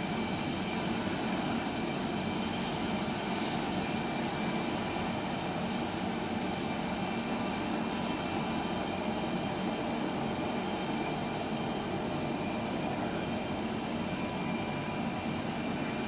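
Jet airliner's turbofan engines running at idle as an Airbus A320-family aircraft taxis: a steady rumble with a thin, constant high whine on top.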